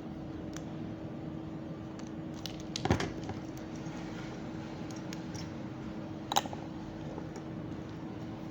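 Metal and plastic parts of a gummed paper cutting machine handled during disassembly: scattered small clicks, a louder knock about three seconds in and a sharp click a little past six seconds, over a steady low hum.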